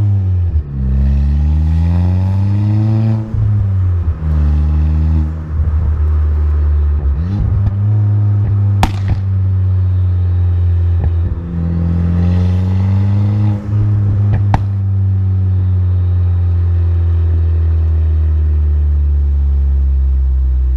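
Stage 3 Ford Fiesta ST's turbocharged four-cylinder through a catless downpipe and 3-inch MBRP cat-back with a Flowmaster muffler, pulling up in pitch and dropping back between gear changes over the first few seconds, then running steadily at cruise. Sharp exhaust pops from the crackle-and-pop tune crack out about nine seconds in and again near fifteen seconds.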